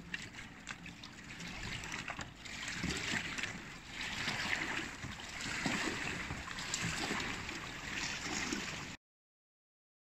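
Water lapping and gurgling against the side of a boat, with small uneven splashes. It grows louder after a few seconds, then cuts off abruptly near the end.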